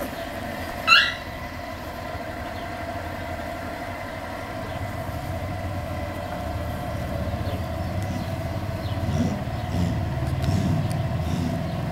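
American Staffordshire Terrier puppies tugging at a rope toy: one short, high yelp about a second in, and low growls near the end. Under it runs a steady low mechanical rumble.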